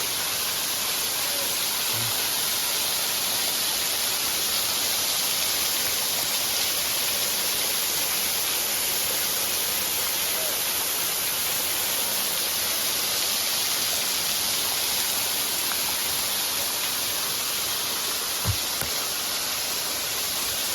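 Waterfall rushing steadily, an even hiss of falling water with no change in level. A brief low bump sounds once near the end.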